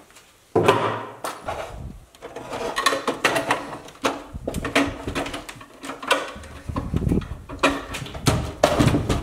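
Irregular knocks and metallic clanks of a sheet-metal electrical load center being handled and set up against the wall framing, starting with a sharp knock about half a second in.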